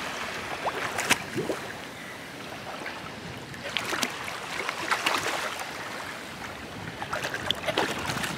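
Shallow sea water washing onto a beach, with bursts of splashing about a second in, around the middle and near the end.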